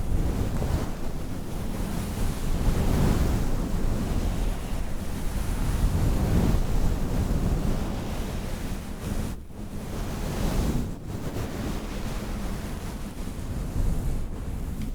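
Loud rushing noise close on the microphone, swelling and dipping, with two brief drops about nine and eleven seconds in, and cutting off suddenly at the end.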